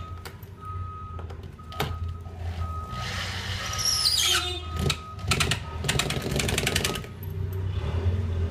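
Cordless drill driving a screw into a metal armrest bracket on a seat back. The motor whirs up about four seconds in, then rattles rapidly for about two seconds as the screw is driven.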